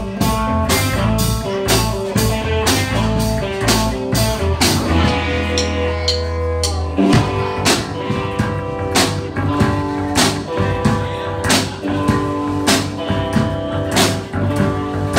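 Live blues-rock band playing an instrumental passage between verses: electric guitars over a steady drum beat, with a long held low note in the middle.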